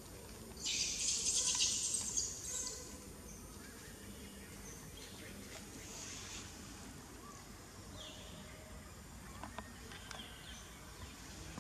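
Outdoor forest ambience with a loud, high-pitched burst of wildlife calls about a second in, lasting about two seconds, followed by fainter short chirps over a low background hum.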